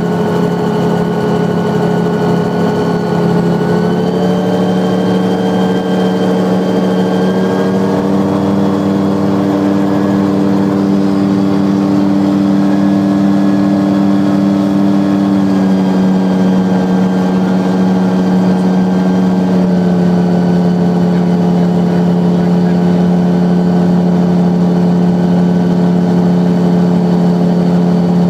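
Engine and pusher propeller of a Celier Xenon 4 XL gyroplane heard from inside the cockpit in flight, a loud steady drone. Its pitch rises about four seconds in and drops back again about two-thirds of the way through, as the power is changed.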